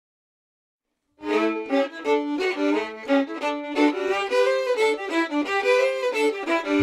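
Silence for about a second, then a fiddle tune starts up, playing quick notes over a held lower note.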